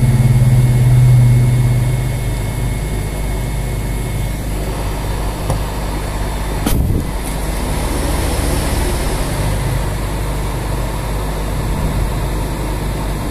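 Budget hot air rework station blowing steadily over a phone CPU, its fan giving a steady low hum, louder in the first two seconds, with one short click about seven seconds in.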